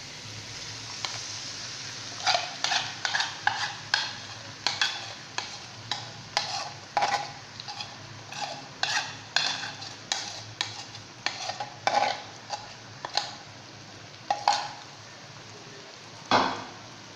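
A spoon scraping and stirring against a karahi as a yogurt-and-spice masala fries in hot oil with a steady sizzle. The scrapes start about two seconds in and come two or three a second, then thin out, with one last hard scrape near the end.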